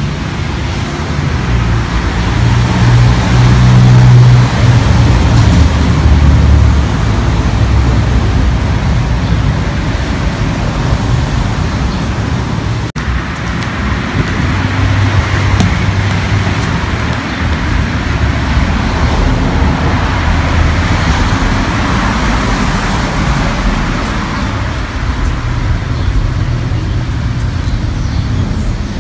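Road traffic noise: cars passing, a steady hiss with a low rumble that swells and fades as each vehicle goes by.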